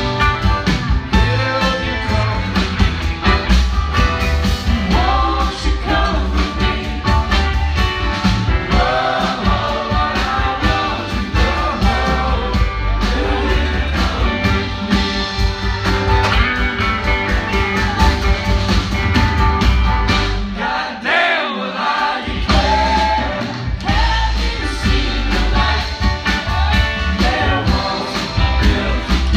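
Live rock band playing with electric guitars, bass and drums while a lead voice sings. About two-thirds of the way through, the bass and drums drop out for a moment, then come back in.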